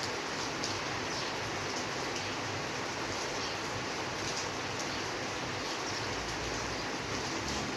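Steady rainfall, an even hiss with scattered drops ticking, and a faint low rumble near the end.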